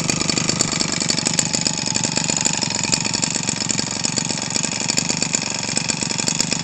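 Echo 25cc two-stroke string-trimmer engine, converted for a model airplane and fitted with a Zenoah G23 muffler, running steadily while it spins an 18x6 propeller.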